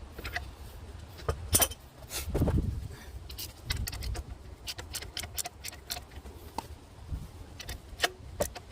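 Hand tools and metal parts clinking and knocking in an irregular series of sharp clicks, with a brief low rumble about two and a half seconds in.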